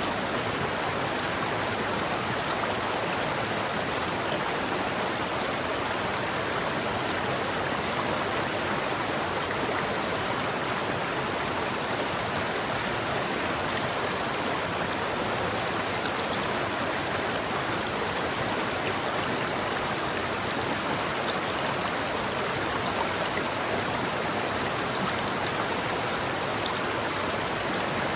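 River water flowing steadily over rocks, an even rushing with small gurgles and no let-up.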